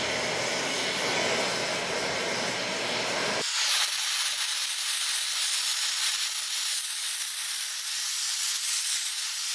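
Oxy-acetylene torch burning with a neutral flame, hissing steadily as it spot-heats a warped welded part to shrink it straight. About three and a half seconds in the low rumble drops out, leaving a thinner, higher hiss.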